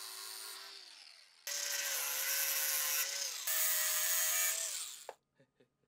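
Angle grinder with a cut-off disc cutting steel bolts off flush with a plywood jig block: two loud cutting passes with a steady whine, the first about a second and a half in, the second about three and a half seconds in. The grinder then winds down and stops a little after five seconds.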